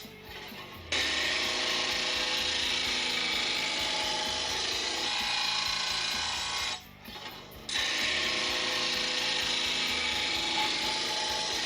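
R.B.G. 2181 P blade grinder's wheel grinding the steel edge of a lawn mower blade, a steady grinding that breaks off briefly near the start and again about seven seconds in, while the grinder keeps running more quietly.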